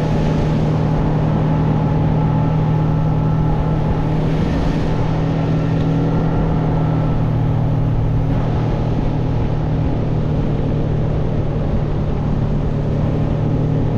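Outboard motor of a small boat running steadily while underway, its even engine hum over a constant noisy rush.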